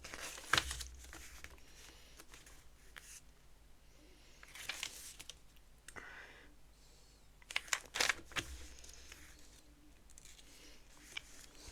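Faint, scattered clicks and rustles of small LEGO plastic pieces being handled, with a short flurry of clicks about eight seconds in.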